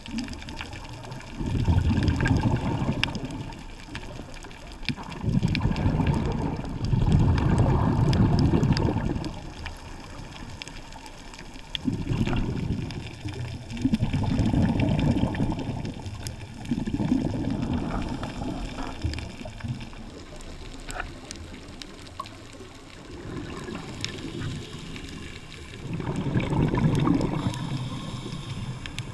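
Scuba diver's exhaled bubbles from the regulator, in repeated gurgling bursts of one to two seconds every few seconds, with faint scattered clicks underneath.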